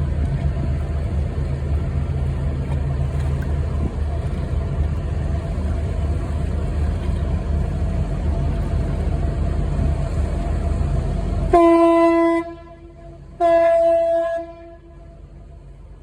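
Steady low engine-and-wind rumble, cut off suddenly by two loud blasts of a ship's horn, one short and one slightly longer, each a single steady pitch.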